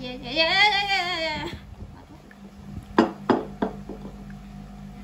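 A girl's voice sings a wavering tune for about a second and a half. Then a wire whisk clinks three times in quick succession against a glass bowl while whipping thick dalgona coffee foam.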